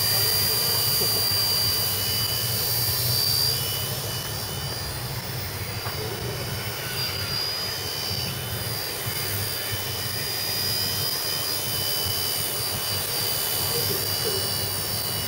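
WLToys V931 scale RC helicopter's electric motor and rotor, a high whine over a low rotor hum. The whine shifts in pitch as the throttle changes, and the sound drops a little about three and a half seconds in.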